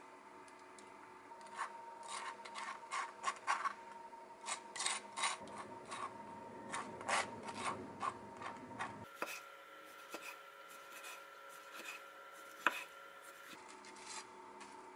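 A small spreader scraping across toasted bread, spreading mayonnaise in many quick, uneven strokes. After a cut about nine seconds in, quieter handling follows, with one sharp tap near the end.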